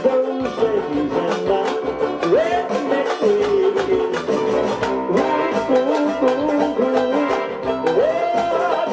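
Resonator banjo strummed rapidly together with an electronic keyboard playing a melody line that bends and slides in pitch.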